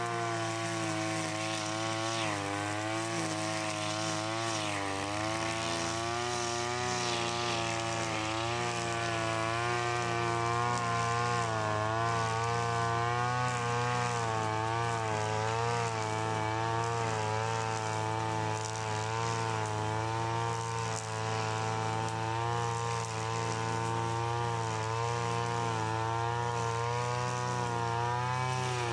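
Vintage Stihl FS 90 AV brushcutter engine running at high speed while its trimmer line cuts grass, its pitch wavering up and down as the load changes, with a brief dip about five seconds in.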